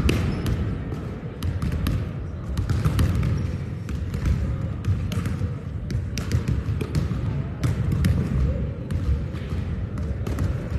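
Volleyballs being hit and bouncing on a hardwood gym floor during warm-up passing: many short, irregular smacks, some overlapping, over a low steady rumble of the large gym.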